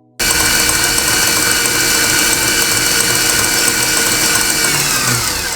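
Stand mixer running at high speed, its whisk beating an egg-and-sugar mixture into a thick foam for sponge cake; the motor's whine is steady, then falls in pitch near the end as the mixer is switched off and spins down.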